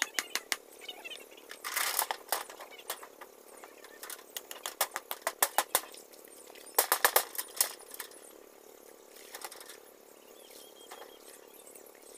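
Quick runs of sharp rattling knocks and water splashing, fitting corrugated metal sheeting being handled and set down in shallow pond water. The loudest clatters come about two seconds in and again about seven seconds in.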